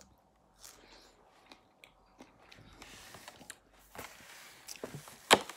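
Close-up mouth sounds of biting and chewing a fresh strawberry: soft wet crunches and smacks in short irregular bursts. A single sharp click near the end is the loudest sound.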